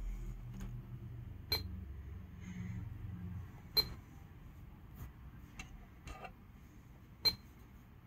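Touch taps on an Android car head unit's touchscreen: three sharp click-beeps with a short high tone, at uneven spacing, with fainter fingertip ticks between. A low rumble fades out over the first few seconds.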